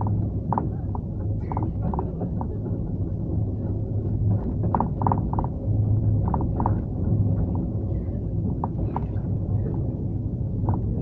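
Inside a 71-911 low-floor tram running between stops: a steady low rumble, with short high squeaks coming and going every second or so.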